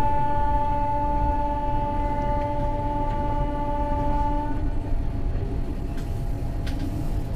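Train horn held in one long steady blast that stops about four and a half seconds in, over the continuous rumble of a moving passenger train.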